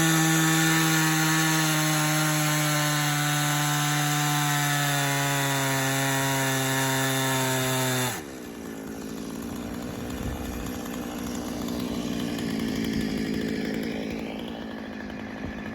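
Two-stroke chainsaw on a homemade chainsaw sawmill running at full throttle, its pitch sagging slowly as the bar is pulled through the log to cut a slab. About eight seconds in, the throttle is let off and the engine drops suddenly to a lower, rougher idle.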